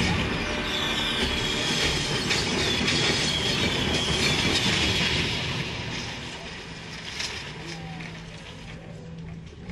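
Film sound of exploding fireworks: a dense fizzing, crackling rush of sparks with high whistles over it in the first few seconds, dying down over the last few seconds.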